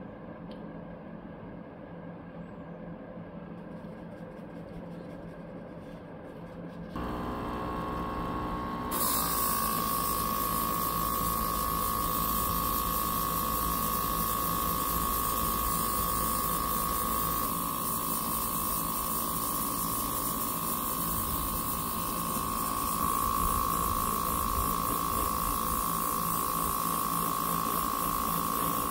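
Airbrush spraying: a steady hiss of air and paint starts about nine seconds in, laying a light, dry 'sand-spray' first coat. Under it runs the whine of the small air compressor feeding it, which starts about seven seconds in. Before that there is only a faint low hum.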